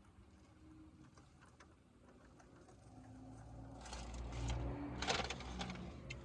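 A vehicle passing by: a faint low rumble that swells to its loudest a few seconds in, then fades.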